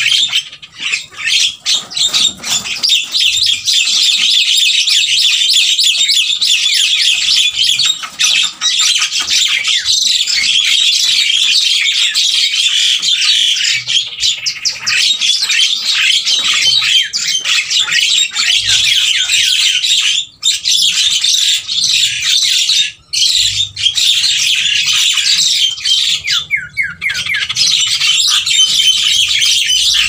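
Many Javan mynas calling at once: a dense, continuous chorus of harsh chatter and squawks, with a couple of brief lulls past the middle.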